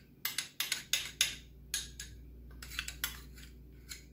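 Metal spoon scraping and clinking against a small glass bowl as thick tomato sauce is scraped out, a string of about ten short scrapes and clinks.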